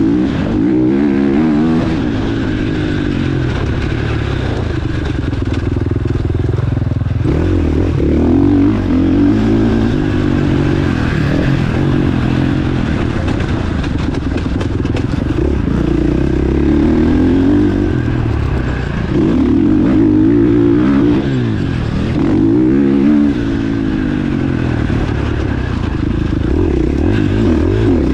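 Motocross bike engine at race pace, its pitch rising and falling over and over as it is revved hard and backed off.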